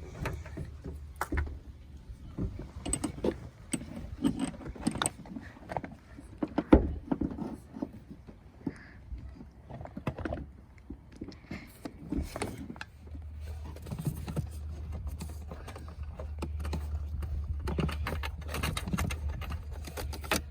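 Clinks and knocks of metal hand tools and bolts as the door's 12 mm bolts are put in and tightened on a car door, with one sharp knock about seven seconds in. A steady low hum starts about two-thirds of the way through.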